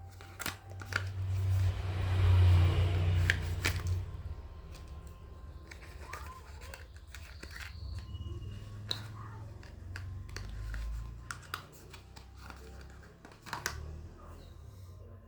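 Close handling noise from unboxing: loud rubbing and rustling for a couple of seconds near the start, then quieter rubbing broken by scattered small clicks and taps.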